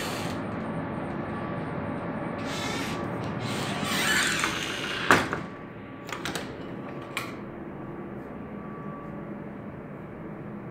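A door rattling as it slides, then banging shut about five seconds in, followed by a few lighter clicks. A steady hum runs underneath and drops quieter after the bang.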